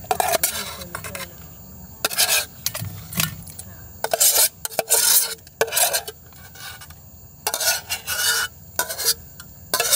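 Metal spoon scraping cooked shrimp and sauce out of a small metal camping pot into a steel cup, in a series of short, irregular scrapes of metal on metal.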